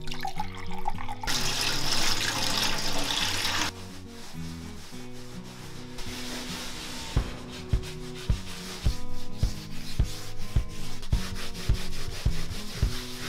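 Soft acoustic guitar music plays throughout. From about a second in until nearly four seconds there is a loud rushing, rubbing noise. In the second half, quieter repeated strokes sound as sponges scrub a painted wall.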